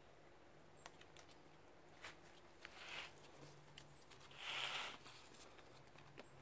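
Faint scuffling and light taps of kittens scrambling on a rug and concrete around a stick toy, with two short rustling scuffs, about three seconds in and again a little after four seconds.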